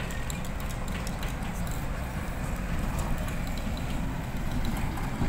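Heavy truck engines running as a container tractor-trailer drives past, a steady low rumble.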